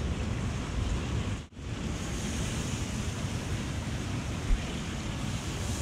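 Rainbow runner fillet sizzling steadily on a very hot grill, with wind rumbling on the microphone. The sound cuts out for an instant about a second and a half in.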